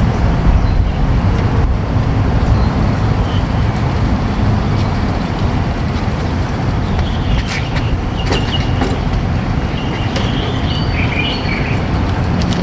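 Steady traffic rumble from vehicles on a road, with a few brief high-pitched squeaks in the second half.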